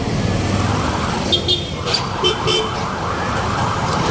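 Steady motor and traffic noise with a low hum. A few short, high beeps come in quick succession about a second and a half in.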